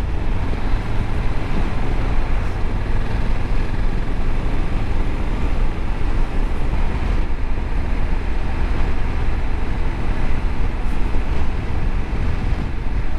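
Honda Africa Twin 1100 motorcycle riding at a steady speed: its parallel-twin engine running evenly under wind and road noise.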